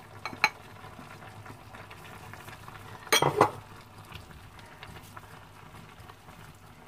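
A wooden spatula scraping and knocking against a frying pan as green beans are tipped in from a glass bowl and stirred into the vegetables, with a short clatter of knocks about three seconds in. Under it runs the faint steady hiss of the pan simmering.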